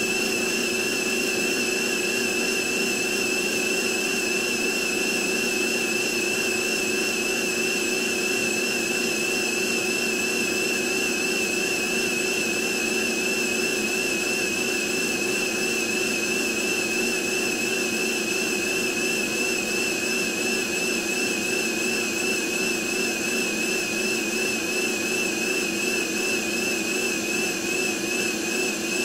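NOVETE VT-DH003 handheld vacuum cleaner running unattended, its motor giving a steady high whine over a lower hum. In the last several seconds the whine begins to waver slightly in pitch and loudness.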